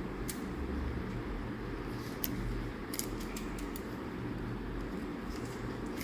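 Light clicks of steel surgical instruments, scattered and irregular, over a steady low hum.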